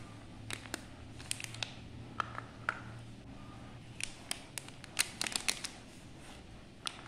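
Snacks set down on a plastic divided platter and a chocolate bar slid out of its plastic wrapper: scattered light taps and wrapper crinkles, busiest about four to five and a half seconds in.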